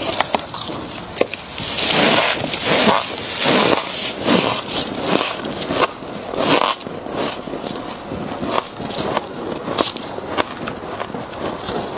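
Gloved hands scraping loose freezer frost off the inside of a chest freezer, mixed with the crunch of frost being chewed: a quick, uneven run of short rough scrapes and crackles.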